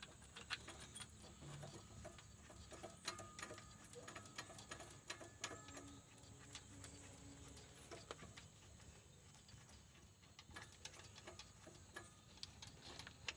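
Near silence with faint, scattered light clicks and metal taps of hand tools and bolts as the injection pump is bolted to the engine.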